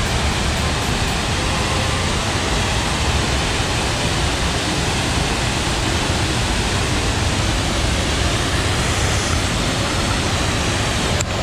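Waterfall rushing in a steady, even roar.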